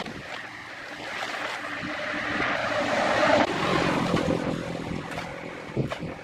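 Shovel and hoe scraping and scooping through a pile of dry cement mix on a concrete floor, loudest about three seconds in, with a couple of sharp scrape-knocks near the end.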